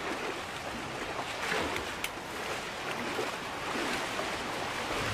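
River water splashing and churning as men and horses wade through it, over a steady rush of flowing water. There is a sharp click about two seconds in.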